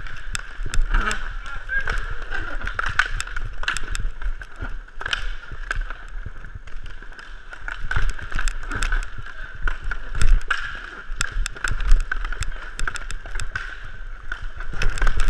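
Inline hockey play on a plastic sport-court floor heard close up from a skater: skate wheels rolling, with frequent sharp clacks of sticks and puck.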